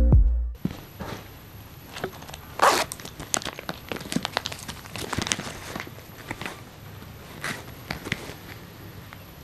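Close-up handling of a clear plastic pouch and a cardboard soap box: crinkling and rustling with many small clicks, and a louder short rasp about two and a half seconds in.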